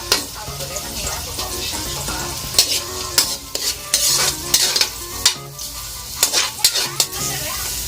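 Chopped onions sizzling in hot oil in a pan while being stirred, the utensil scraping and knocking against the pan every second or so. They are being sautéed until translucent.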